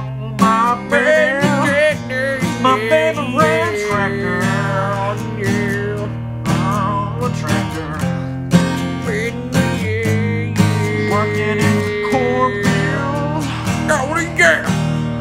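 Strummed acoustic guitar playing a country-style song, with a melody line above it that wavers in pitch.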